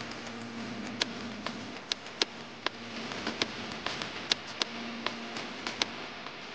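Irregular sharp clicks and taps of fingers and nails handling a smartphone, pressing a sticker onto its back and picking the phone up. A low hum comes and goes underneath.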